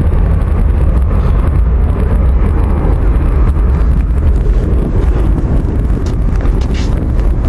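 Strong wind buffeting the microphone: a steady, heavy low rumble from gusts of around 30 knots.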